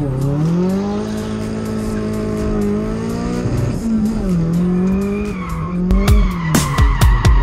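A 1989 Nissan 240SX's turbocharged SR20DET four-cylinder engine, heard from inside the cabin, revving up and down several times through a drift while the tyres squeal. About six seconds in, a music track with a strong beat comes in.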